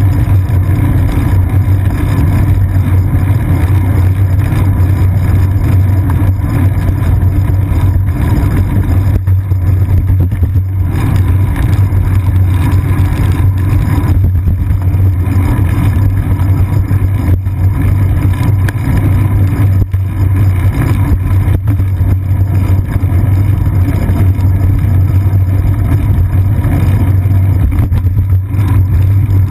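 A bicycle riding over wet pavement, heard through a camera mounted on its seat post: a loud, steady low rumble of road and frame vibration with no breaks.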